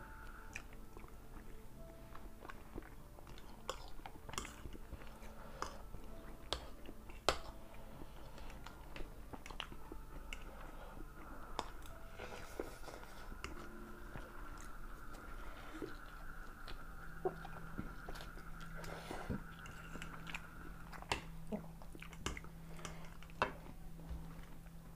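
Two people chewing and eating instant noodles, with scattered sharp clicks of metal forks against ceramic plates.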